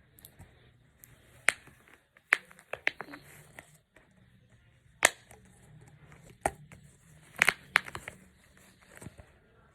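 Fidget toy being worked by hand: irregular sharp pops and clicks, a few of them in quick pairs.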